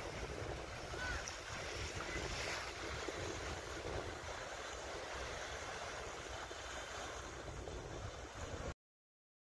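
Wind buffeting the microphone over waves washing onto the shore, a steady rushing noise that cuts off suddenly near the end.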